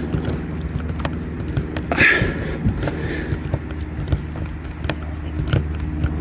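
A steady low mechanical hum throughout, with scattered sharp clicks and knocks and a brief voice-like sound about two seconds in.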